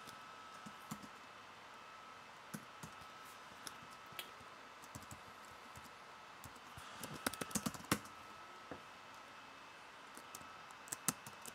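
Computer keyboard typing: scattered single keystrokes, then a quick run of keys about seven to eight seconds in. A faint steady high-pitched hum runs underneath.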